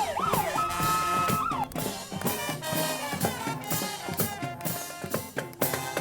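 A wailing siren holds a steady tone and then falls away in the first second and a half. Parade music with a drum beat follows.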